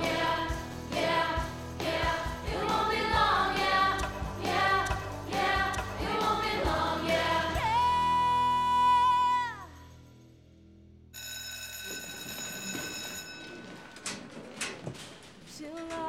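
Rock song with a young woman singing over a band, ending on a long held high note that falls away. About a second and a half later an electric school bell rings steadily for about two seconds, followed by a few scattered knocks.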